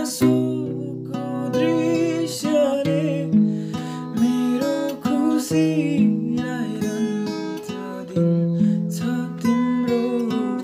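Music: a strummed acoustic guitar with a wavering lead melody over it, an instrumental passage of a Nepali song.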